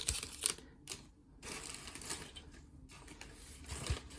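Trading cards and packaging being handled: irregular light clicks and short stretches of rustling as cards are sorted and flipped.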